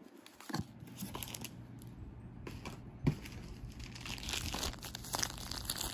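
Plastic packaging crinkling and rustling as it is handled. Irregular sharp crackles grow denser in the second half.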